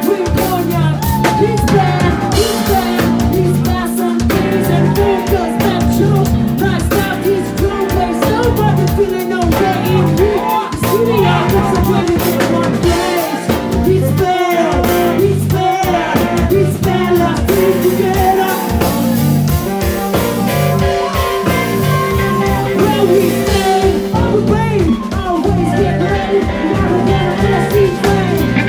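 Live rock band playing loudly: a drum kit keeps a steady beat under guitar and keyboards, with some singing.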